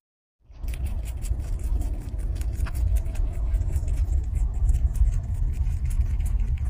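Young rabbit chewing a piece of purple napa cabbage leaf: quick, faint crunchy clicks over a steady low rumble, starting about half a second in.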